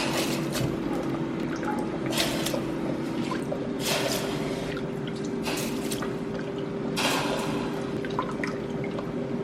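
Rice being rinsed in a bowl of water: water sloshing and pouring off in short splashes every second or two, over a steady low hum.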